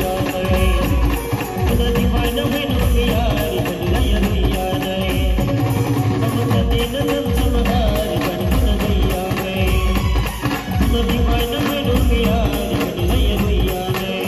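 Loud live band music through a truck-mounted loudspeaker system: an electronic keyboard plays a wavering melody over a dense, steady beat of drums struck with sticks.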